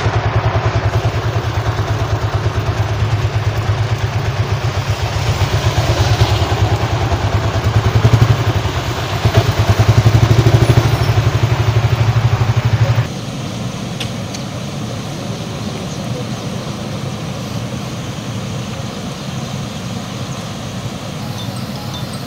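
A vehicle engine runs close by in heavy rain, with a fast steady throb over the hiss of rain, for about the first thirteen seconds. The sound then cuts abruptly to a quieter steady rush of rain and running water.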